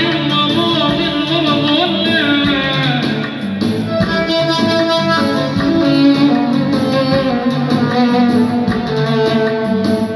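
Electronic keyboard playing an instrumental melody in a plucked-string voice over a low accompaniment, with pitch glides in places.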